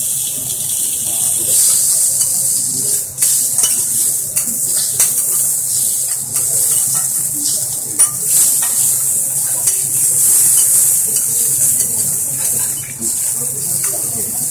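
Kobe beef sizzling on a hot flat steel griddle, a steady high hiss, with scattered short clicks and scrapes of a steel spatula and knife against the griddle plate.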